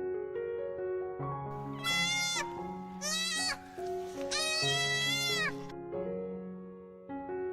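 A goat bleating three times, each call wavering in pitch, the last the longest, over soft piano background music.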